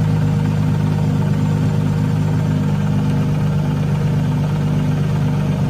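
Steady, loud, low machine hum, unchanging throughout.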